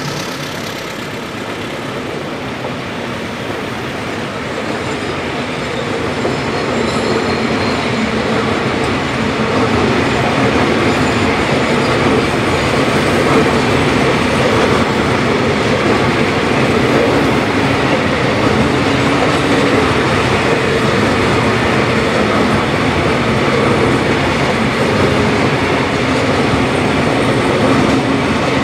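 A long train of empty-looking open coal wagons rolling past close by: the steady noise of steel wheels on the rails. It grows a little louder over the first several seconds, then holds steady.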